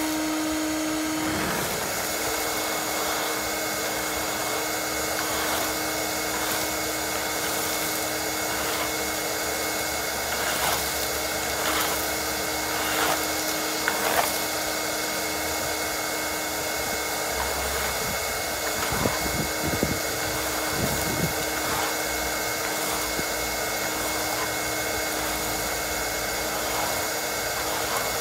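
Ridgid NXT wet/dry shop vac running steadily while vacuuming, a constant motor hum with brief knocks and clatters now and then.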